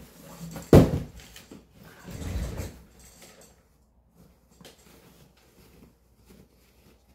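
A single loud thump about a second in, then rustling of a cloth dust bag and tissue paper as the bag is lifted out of a cardboard box, followed by faint handling sounds as its drawstring is worked.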